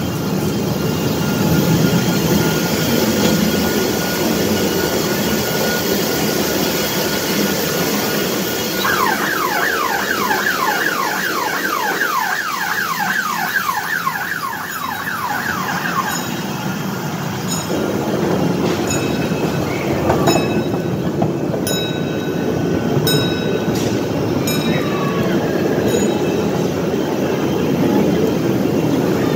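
A small amusement-park ride train running, with the steady noise of an indoor amusement park around it. About a third of the way in, a rapid warbling tone repeats for several seconds. After it, sharp clicks come regularly about every second and a half.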